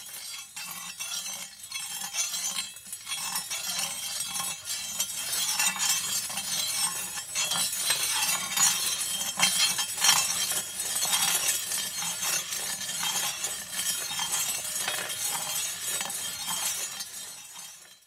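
Sword blade ground against a spinning grinding stone: a sustained harsh, hissing metal-on-stone scrape full of fine gritty crackle, with a faint low hum underneath. It builds over the first few seconds and stops abruptly at the end.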